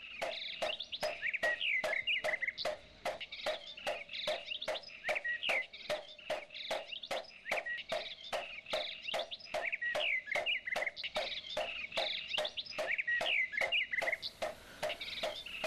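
Animal calls: a regular pulsing call repeating about three times a second, with birds chirping over it.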